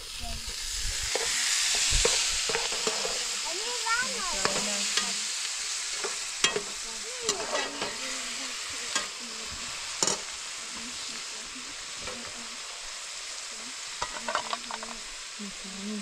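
Food sizzling as it fries in a hot pan, with scattered clicks and scrapes. The sizzle swells about two seconds in, then slowly dies down.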